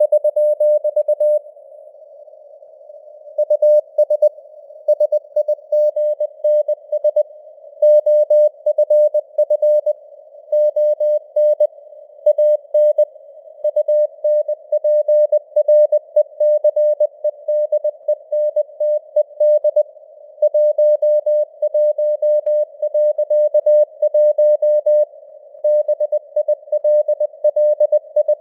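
Morse code at 20 words per minute: a single steady-pitched tone keyed on and off in dots and dashes, spelling out news headlines, over a faint simulated radio-noise hiss.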